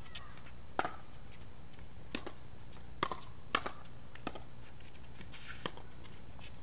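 Pickleball rally: paddles striking the plastic ball in six sharp pocks at uneven intervals, about a second apart.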